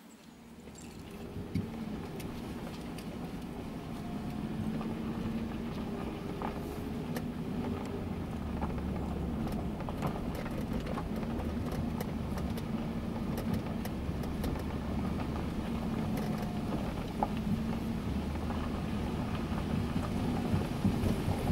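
Car engine and road noise heard from inside the cabin, building over the first few seconds as the car pulls away and then running steadily, with a low hum and occasional small clicks and rattles.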